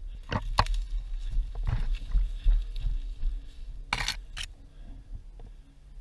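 Rustling and crunching from a person moving through wooded undergrowth, over a low rumble of wind and handling on the microphone. A few sharper scuffs stand out, the loudest about four seconds in.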